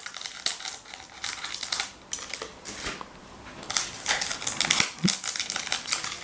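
Foil wrapper of a trading-card booster pack being torn open and crinkled in the hands: rapid crackling and rustling, easing off about two seconds in and building again near the end.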